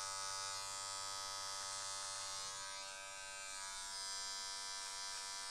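Cordless hair clipper running steadily with an even, many-toned motor sound as it snips stray hairs off the edges of a full beard.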